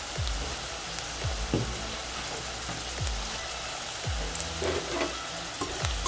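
Chopped onions and a mustard-seed and urad-dal tempering sizzling steadily in hot oil in a kadai as they are sautéed and stirred, with a few soft low bumps along the way.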